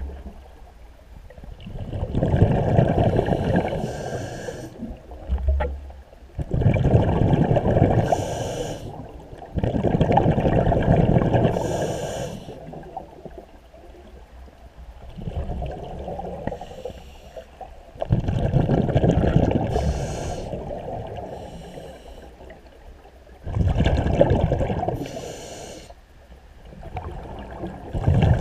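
Scuba diver breathing through a regulator underwater: about six breaths, each a long bubbling exhalation alternating with a short hiss of air through the regulator, every four to five seconds.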